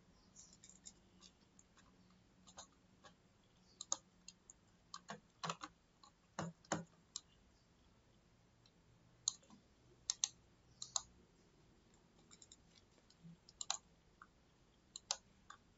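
Scattered sharp clicks of a computer mouse, at irregular intervals and some in quick pairs, over a quiet background.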